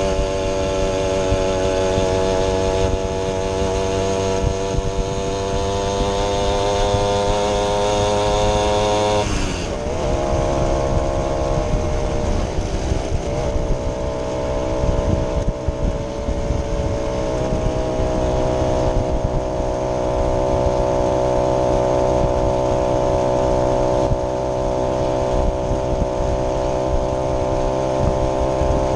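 Vintage moped's small two-stroke engine running under way, its note climbing slowly for about nine seconds, then dropping sharply and settling to a steady pitch.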